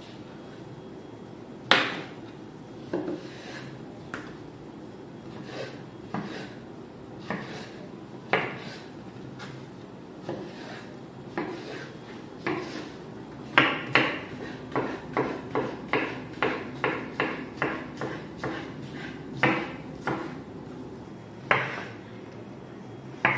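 Kitchen knife chopping cucumber on a wooden cutting board: a few scattered knocks, then a steady run of quick knife strikes on the board about two a second, starting a little past the middle.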